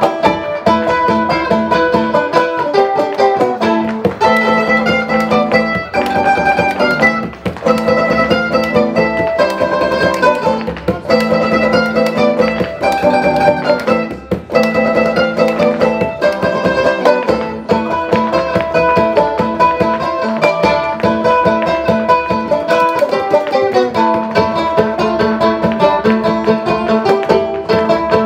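Live folk band playing an instrumental tune, led by plucked string instruments picking quick runs of notes with a steady rhythm.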